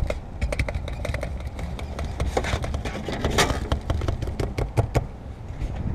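Windshield wire-out cutting tool being wound, giving runs of quick clicks about ten a second as its line cuts through the urethane bead, with a louder rasp about three and a half seconds in.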